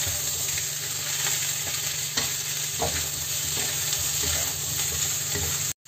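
Pork rib pieces sizzling in oil in a stainless steel wok while a wooden spatula stirs and scrapes them, with a few light knocks of the spatula on the pan. The sound breaks off for an instant near the end.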